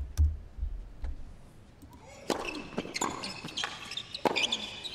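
Tennis doubles point on a hard court: a few dull ball bounces before the serve, then from about two seconds in a serve and a quick exchange of sharp racket-on-ball strikes, roughly one every two-thirds of a second.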